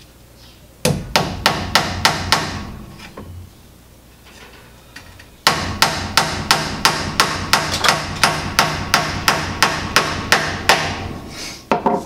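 Hammer driving a nail into the cedar frame of a wooden hive floor: a short run of about seven quick blows, a pause, then a steady run of about twenty blows at roughly four a second. Near the end the hammer is set down on the bench with a knock.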